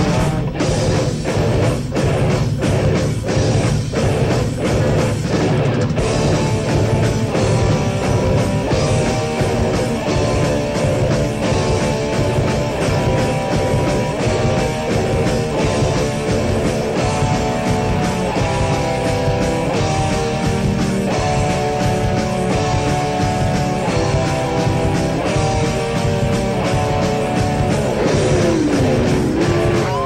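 Heavy metal band playing on a 1980s cassette demo: distorted electric guitar, bass and drums, with hard hits in the first few seconds and a guitar line of held notes stepping up and down in the second half. Near the end one note dips in pitch and rises again.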